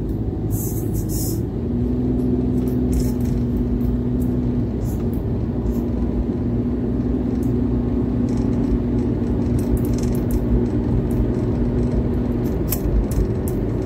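Car cabin noise while driving: a steady low rumble of engine and tyres on the road, with a steady hum that sets in about a second and a half in and stops near the end.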